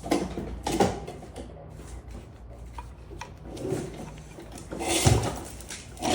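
Scattered metal clicks and clunks as a motorcycle front brake caliper with new pads is slid over the disc and its first mounting bolt is fitted, with a heavier knock about five seconds in.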